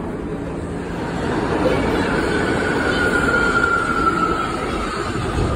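New York City subway train pulling into an underground station: a loud rumble of the cars, with a single whine from about two seconds in that falls steadily in pitch as the train slows.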